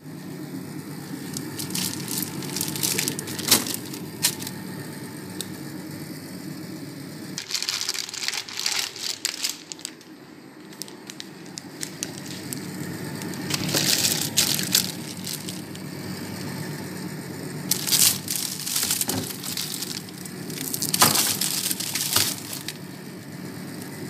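Clear plastic bags holding raw chicken pieces crinkling and rustling as they are handled, in several bursts a few seconds apart.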